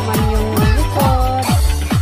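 Electronic dance music with a steady kick drum beat, about three beats a second, and a synth melody that slides in pitch.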